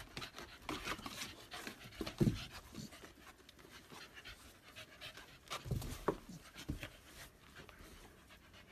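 A dog panting and breathing in short, irregular puffs, with a couple of soft low thumps, about two seconds in and again near the middle.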